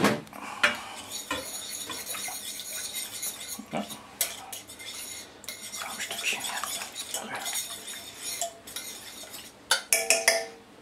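A small metal whisk stirring a tomato-cream sauce in a stainless steel pan, scraping and clinking against the metal as the separated cream and herbs are worked in. A sharp metallic clank opens it, and a few quick knocks come near the end.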